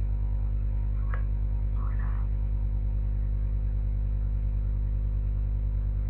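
Steady electrical mains hum with a stack of harmonics, picked up by the recording setup, with a brief faint click about a second in.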